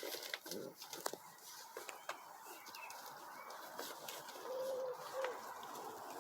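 A bird calling softly, two short notes near the end, amid scattered light clicks.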